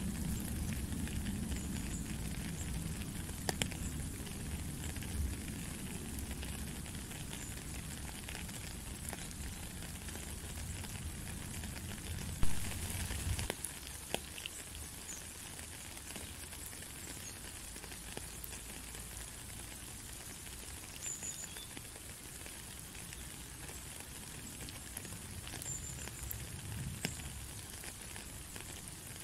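Steady rain falling, with scattered close drops ticking and one louder tap about halfway through. A low rumble underneath drops away at about the same point.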